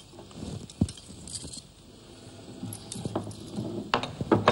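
Light jingling of bangles and soft clinks against a ceramic plate as a hand mixes a dry flour-and-sugar powder, with a few sharper clicks near the end.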